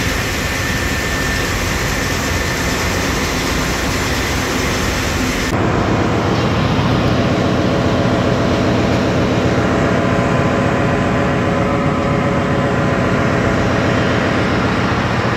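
Steady, loud machinery noise in a ship's engine room, with a constant hum under it. About five and a half seconds in it changes abruptly to a duller sound with less hiss.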